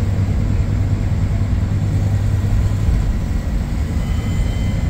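Scania K230UB single-deck bus running along the road: a steady low engine and road rumble that holds a constant level, with a faint high tone creeping in about four seconds in.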